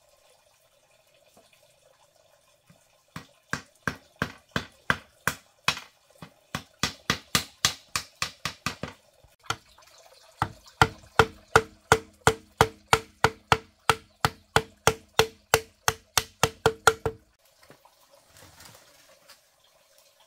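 Nails being hammered into split-bamboo slats on a bamboo-pole frame: quick, even strikes about three to four a second, in two runs with a short pause near the middle. The later strikes ring with a hollow tone.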